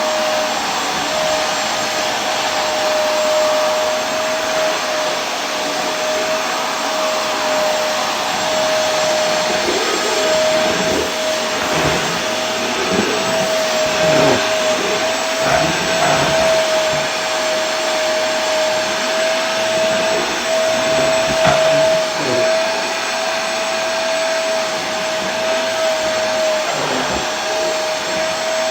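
Vacuum cleaner running steadily: an even, dense hiss of rushing air with a constant whine held at one pitch.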